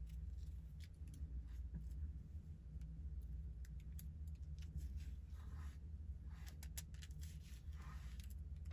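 Scissors snipping through wig lace: a run of small, irregular clicks and short snips, over a steady low hum.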